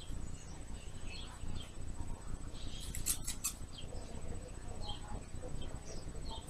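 Scissors snipping at long hair, a quick cluster of sharp snips about three seconds in, with soft rustling and scratching of hair being handled around them.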